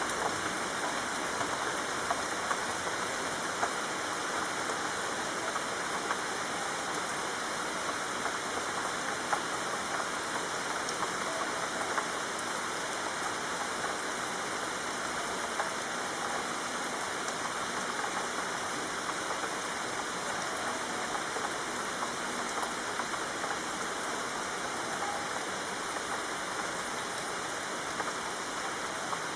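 Rain falling steadily on a street, a dense, even patter of many small drops.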